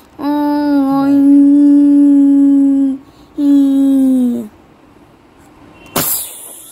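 A child's voice holding two long, steady wailing notes, the second sliding down in pitch as it ends, then a short burst of hiss near the end.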